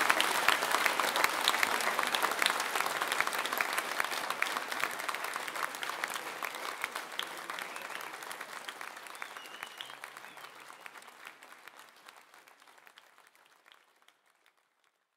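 Concert audience applauding, a dense patter of many hands clapping, fading out gradually until it is gone shortly before the end.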